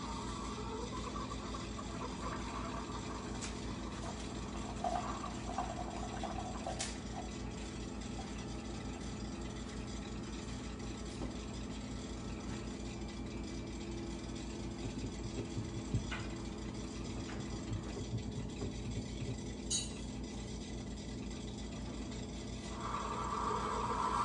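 Pod coffee maker brewing: a steady pump hum with a low rattle, with a few light clicks of cup and counter. A louder sound joins near the end.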